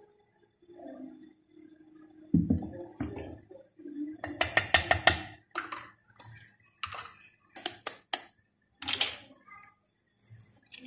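Kitchen utensil sounds at a steel mixing bowl: a dull knock, then several clusters of quick sharp clicks and taps as a ladle and an eggshell knock against the bowl while oil is added and an egg is cracked.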